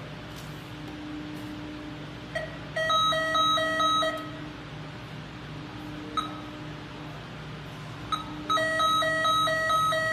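Wireless fire alarm system beeping electronically in two bursts of rapid pulses, about four a second, each burst introduced by a single short beep, with one more lone beep between them. A steady low electrical hum runs underneath.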